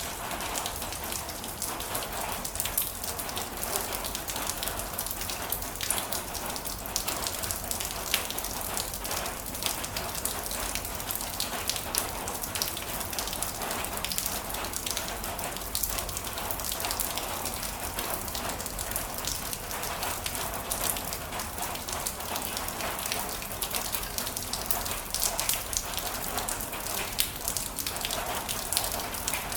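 Heavy rain falling steadily, with many sharp individual drops pattering on a surface.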